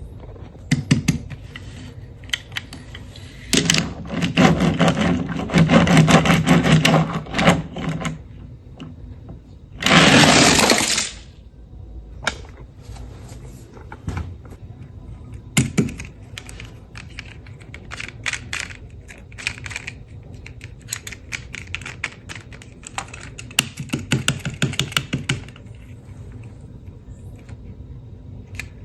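Plastic toy cars and their packaging being handled: irregular clicks, knocks and clattering, busiest for a few seconds early on, with one loud burst of rustling noise lasting about a second near the middle.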